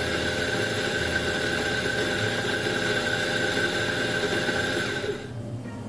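Electric espresso grinder running steadily as it grinds coffee beans into a portafilter, then cutting off about five seconds in.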